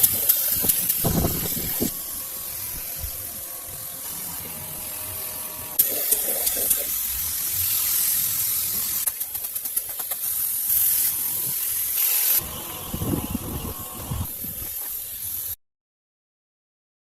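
Hissing spray in stretches that start and stop, with some lower rumbling noise at times, cutting off abruptly to silence near the end.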